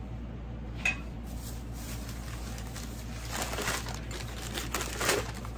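Crinkling and rustling of white wrapping as a small china creamer is unwrapped, loudest about three and a half and five seconds in, after a single light clink about a second in. A steady hum of air conditioning and fans runs underneath.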